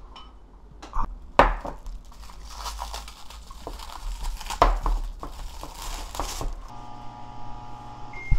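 Crinkling and crackling with a few sharp clicks, then a steady low electrical hum starting a little before the end.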